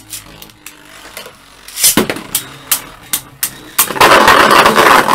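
Beyblade spinning tops clashing in a plastic stadium: a run of sharp clacks from about two seconds in, then a loud grinding rattle over the last second.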